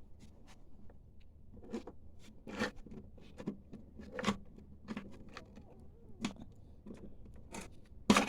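Irregular small clicks, taps and scrapes of a lawnmower clutch cable being worked free and pulled out from underneath the mower, with a louder knock near the end.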